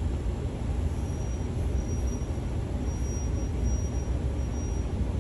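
Delivery van's engine idling, a steady low rumble.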